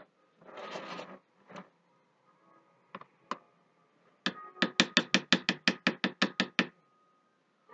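White plastic fork knocking against the sides of a plastic soap mold while swirling cold-process soap batter: a brief scrape, then a quick run of about fifteen sharp clicks at roughly six a second.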